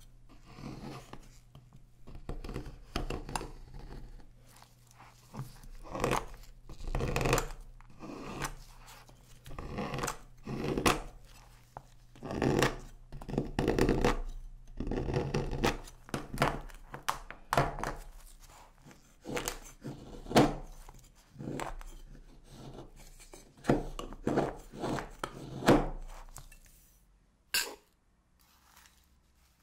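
A knife shaving and chopping a bar of dark chocolate on a cutting board: a long run of uneven scraping, crunching strokes as curls break off the bar. Near the end the cutting stops and there is a single sharp tap.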